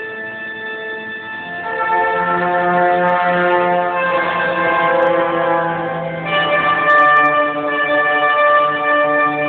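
Trumpets playing slow, sustained chords. The held notes change to a new chord about two seconds in and again a little past halfway.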